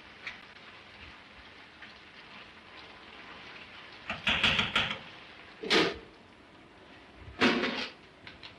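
Metal cooking pots and lids being handled on a wood-fired hearth stove. There is a rattling clatter about four seconds in, then two sharp clanks over a faint, steady crackling hiss.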